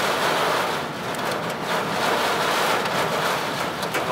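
Heavy wind-driven rain and wind hitting a moving vehicle, heard from inside the cabin: a steady, loud rushing with a few sharp ticks.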